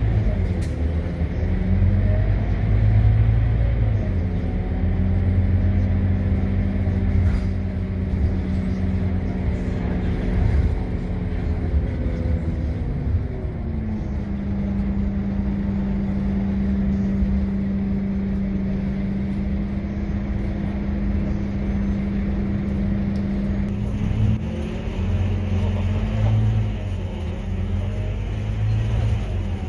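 Scania KUB city bus heard from inside the passenger cabin while driving: the engine drone rises and falls in pitch as the bus speeds up and slows, then holds a steady hum for about ten seconds in the middle before changing again.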